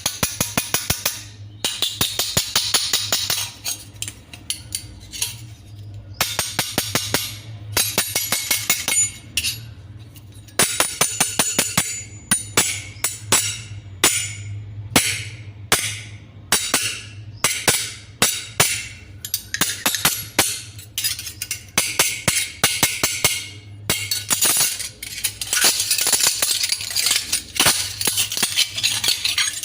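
Steel spoons clattering and knocking against each other: quick runs of metallic clicks and taps with bright jingling rings between them, over a low steady hum.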